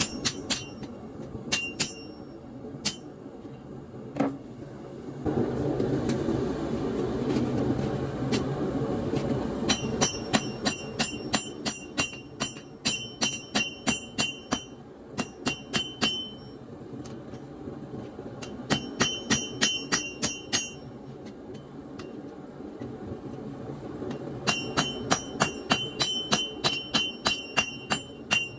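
Hammer blows on a steel double horn anvil, each strike ringing out, in runs of steady strikes about two a second with short pauses between runs, as hot leaf-spring steel is forged into a knife blade. A steady low rushing noise runs underneath and grows louder about five seconds in.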